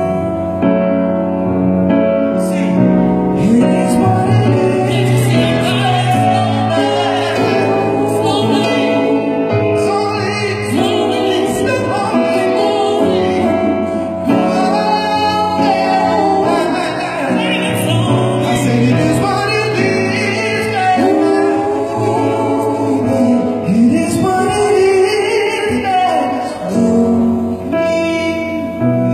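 Live band playing a soul-rock song, with wordless singing over the music.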